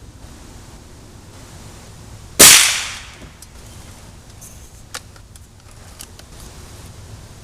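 A single shot from a Gamo Socom Extreme .177 air rifle: one sharp crack about two and a half seconds in, dying away over about half a second. A few faint clicks follow.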